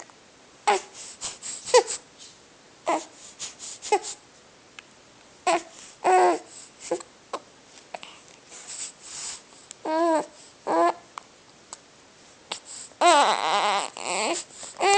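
A young child crying in short, broken sobs that keep being cut off by hiccups, with quiet gaps between them. A longer, louder wail comes near the end.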